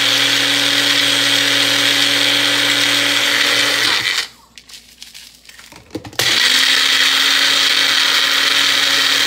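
Magic Bullet blender grinding dry eggshells into powder. The motor runs steadily, stops about four seconds in, and starts again about two seconds later. There are a few knocks just before it restarts.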